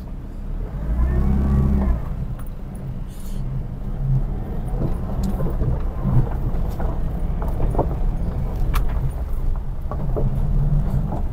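Toyota Hiace van pulling away in first gear, its engine running steadily and loudest about a second in as it sets off. Scattered small clicks from the tyres rolling over gravel.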